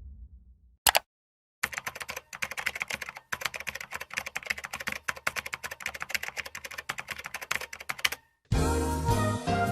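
Rapid typing on a computer keyboard: a dense run of key clicks lasting about six seconds. Music with pitched notes starts near the end.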